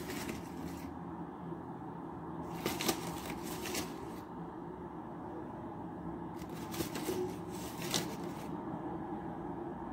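Plastic flour bag crinkling in three short bouts as flour is added to a glass bowl of potato and beef, over a steady low background hum.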